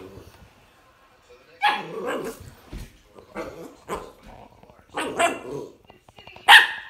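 A puppy barking in a string of short, sharp barks that start about a second and a half in, the loudest one near the end.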